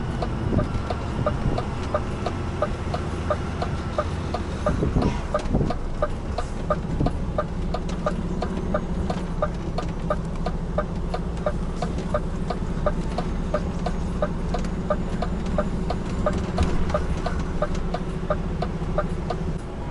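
Truck's indicator clicking in the cab, a steady even tick about twice a second, over the truck's engine running slowly as it turns in.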